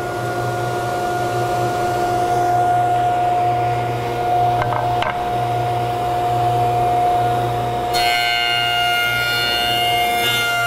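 Powermatic jointer running with a steady hum and whine. About eight seconds in, a higher, harsher ringing joins for a couple of seconds as the spinning cutterhead knives take a pass across a board.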